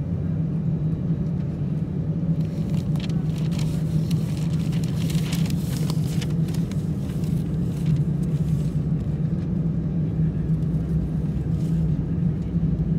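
Airbus A319's hydraulic power transfer unit (the "barking dog") running, heard from inside the cabin as a loud, steady, rough low buzzing drone. A hiss rises over it from about two seconds in and fades by about nine seconds. The PTU runs to pressurise one hydraulic system from another, as when only one engine is running.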